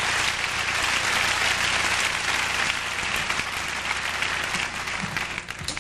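Theatre audience applauding, dying away near the end.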